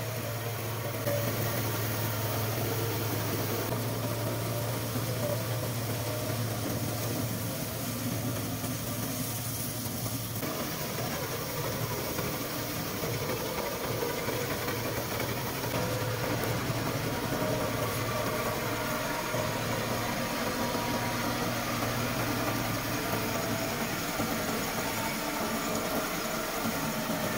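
Massey Ferguson 385 tractor's diesel engine running steadily while it drives a trailed wheat straw chopper-blower that chops stubble and blows it into a trolley. The steady low hum breaks up about ten seconds in.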